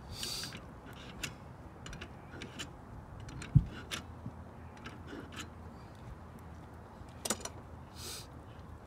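Scattered light metallic clicks and ticks as the spindle nut on a trailer axle hub is worked loose with a hand tool, with one dull thud about three and a half seconds in and a short rag rustle near the end.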